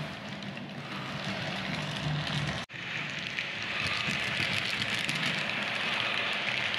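Model train with double-deck coaches rolling along the layout's track: a steady hiss of wheels on rails over a low hum. The sound drops out for an instant about two and a half seconds in, then runs on a little louder as the coaches pass close by.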